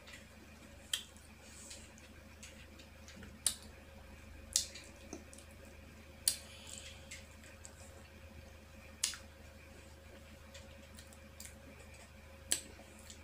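Chewing sour, not fully ripe green mango slices up close: sharp wet crunches and mouth clicks, about six in all, spread out over a faint steady hum.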